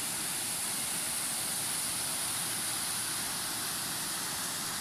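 Steady rush of muddy floodwater running fast over rocks and gravel.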